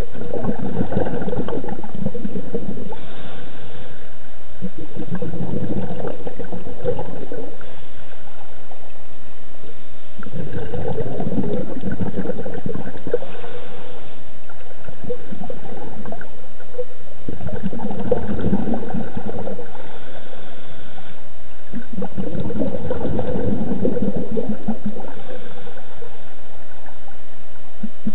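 Scuba diver's exhaled bubbles gurgling out of the regulator in bursts a few seconds long, about five of them with quieter pauses between, the rhythm of slow breathing underwater.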